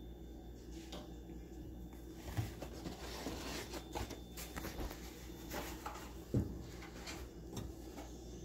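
Faint, scattered light clicks and knocks of kitchen handling over a low steady hum.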